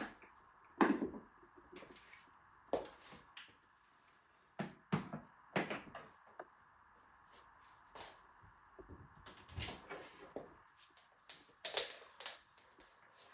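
Irregular knocks, clicks and light rustles of objects being handled, spaced a second or so apart, over a faint steady hum; the vacuum motor is not running.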